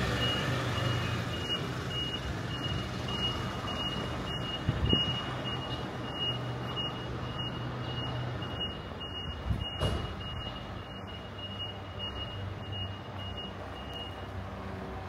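Electronic warning beeper sounding one steady high beep about three times a second over a low engine hum. It stops shortly before the end. Two dull thumps come about five and ten seconds in.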